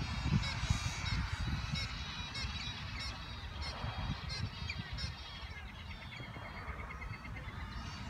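Birds calling from a tree: a run of short, repeated calls about two a second for the first five seconds, then fainter chatter, over a low rumble.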